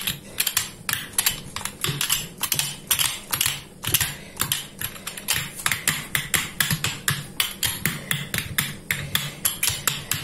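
Wooden frame-handled rolling pin rolled back and forth over dough on a silicone baking mat, making rapid, uneven clicking and clacking, about five clicks a second.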